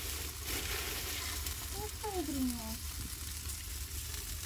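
Sausages and chicken-heart skewers sizzling on a wire grill grate over hot embers, a steady frying hiss. A brief falling tone sounds about two seconds in.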